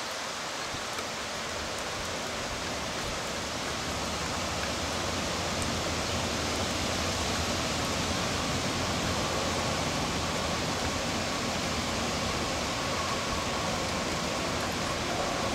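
Steady rushing noise of hurricane rain and wind, growing slightly louder about four seconds in.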